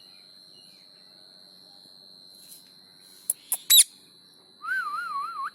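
Pet parrot giving a short, sharp screech about three and a half seconds in, just after two quick clicks. A wavering, warbling whistle follows near the end.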